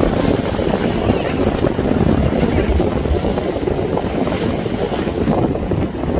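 Loud, continuous, irregular low rumble of wind buffeting the microphone.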